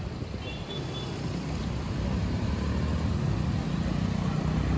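Busy city road traffic, mostly motorcycles and scooters, making a steady engine hum that grows a little louder about two seconds in.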